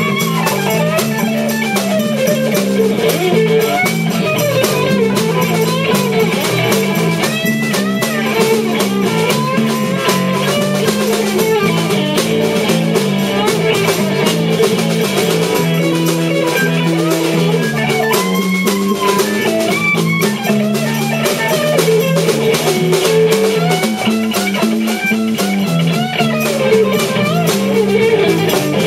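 Live blues-rock band playing an instrumental section on electric guitar, bass guitar and drum kit, with a lead line of bending notes over the steady rhythm.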